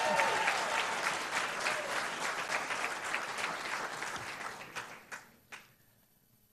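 Audience applause in an auditorium. The clapping dies away over about five seconds, ending in a few last scattered claps.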